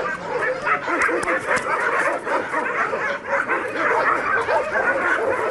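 A large pack of shelter dogs barking and yelping all at once, many short calls overlapping without a break, excited by visitors in their yard.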